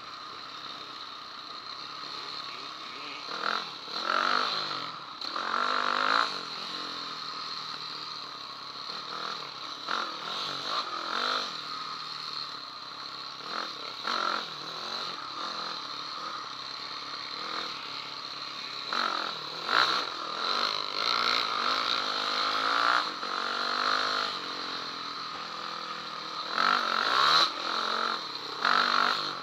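Off-road motorcycle engine revving up and easing off in repeated surges, loudest about four and six seconds in and several times in the last third.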